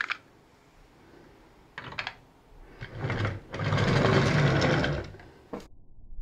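Plastic toy gears whirring for about three seconds as the Hello Carbot drill-tank toy is run by hand, after a light plastic click and ending in a sharp click.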